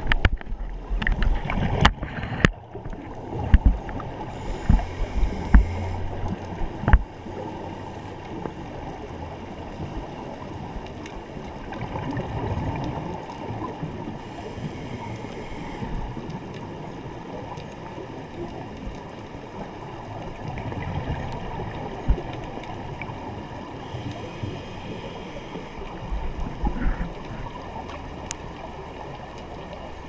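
Muffled underwater rush of water moving past an action camera's housing on a drift dive, with several sharp knocks from handling the camera pole in the first few seconds.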